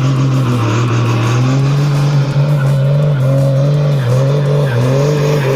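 A motor vehicle engine running, its pitch shifting up and down a little.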